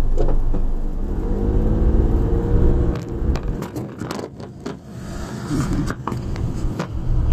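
Car engine and road rumble heard inside the cabin as the car pulls away over a railway level crossing, the engine note rising in pitch early on. Several sharp knocks and rattles follow in the second half.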